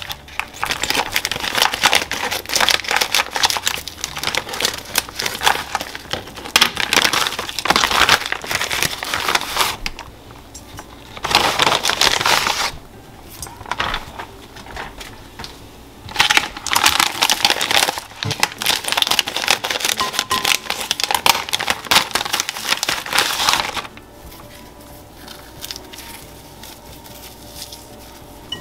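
Plastic packaging bag of salted cod fillets crinkling and crackling as it is handled and the stiff dried fillets are pulled out, in several long stretches with short pauses between; it goes quieter for the last few seconds.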